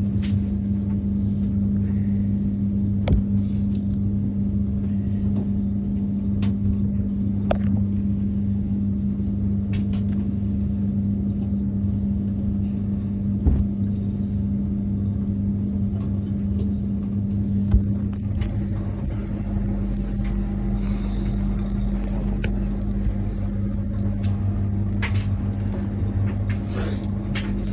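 Steady low mechanical hum with a few sharp clicks and knocks; about two-thirds of the way through, a deeper rumble rises under it.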